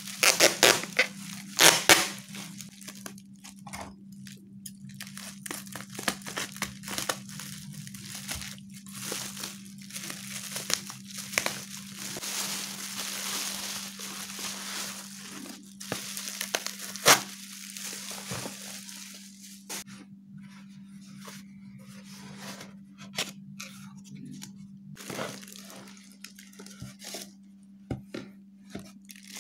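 Bubble wrap crinkling and rustling as it is unfolded and crumpled by hand, with scattered sharp crackles, the loudest in the first couple of seconds and one about halfway. Near the end a clear plastic bag rustles.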